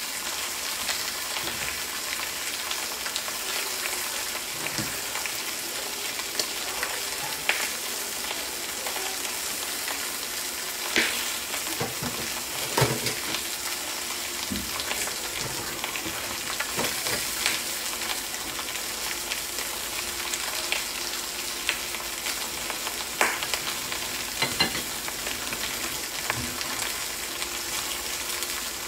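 Rump steak sizzling on a hot ridged grill pan: a steady frying hiss with occasional sharp pops.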